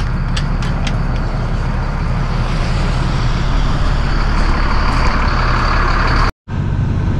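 A truck engine running steadily, heard from inside the cab, with a few light clicks in the first second. The sound cuts out completely for a moment near the end.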